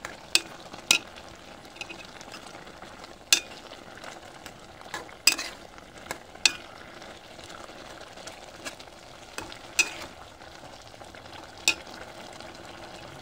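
A metal spoon stirring curry in a metal pot, clinking sharply against the pot about ten times at irregular intervals, over the steady hiss of the curry cooking.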